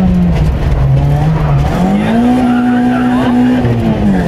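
Car engine being driven hard, heard from inside the car: the revs drop early on, climb again about a second and a half in, hold high, then fall near the end as the car comes off the throttle for a corner.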